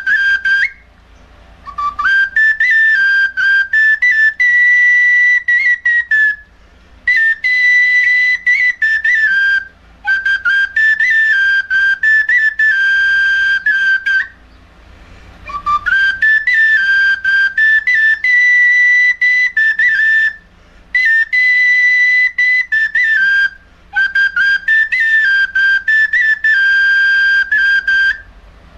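Small red plastic flute (bansuri) playing a high melody, held notes with quick ornaments, in phrases of a few seconds separated by short breaks for breath.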